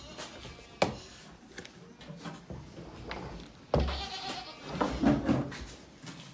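Goats bleating in wavering calls, with a sharp knock about a second in and a sudden thump just before the bleats.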